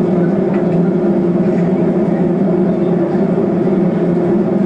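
Steady drone of an Airbus airliner's jet engines and rushing air, heard inside the passenger cabin.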